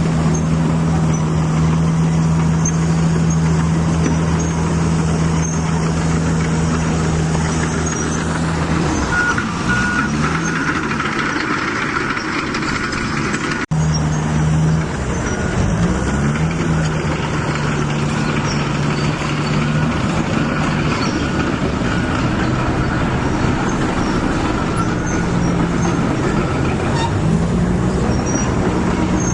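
Truck engine running with a steady low hum, its pitch shifting up and down from about nine seconds in, with an abrupt break about fourteen seconds in.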